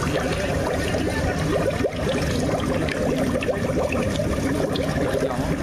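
Indistinct chatter of an outdoor crowd, a steady hubbub with wind rumble on the microphone.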